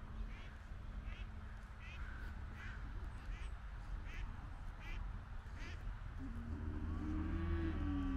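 A duck quacking over and over at a steady pace, about one quack every three quarters of a second. About six seconds in, a louder, lower sound with a wavering pitch comes in and grows.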